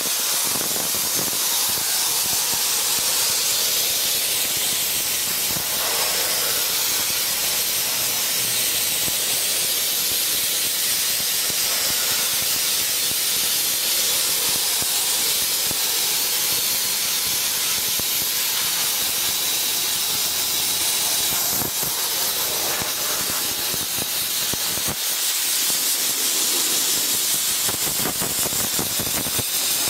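Sodablaster TESI 40 Eco Line blast nozzle spraying baking-soda abrasive on compressed air against weathered wood, a steady, loud hiss as it strips the surface.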